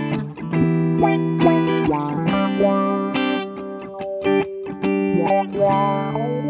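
Two electric guitars jamming together through an envelope filter, with its auto-wah quack on the picked notes: held chords underneath and quick single-note lines on top.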